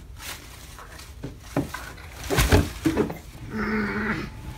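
Scattered knocks and rustles from things being handled, with one heavier thump about halfway through, then a short hummed voice sound near the end.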